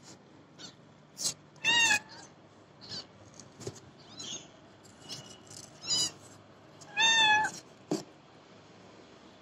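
Newborn kittens mewing in short, high-pitched cries, the two loudest about two seconds in and about seven seconds in, with fainter squeaks between. A few soft clicks and rustles come from handling in the box.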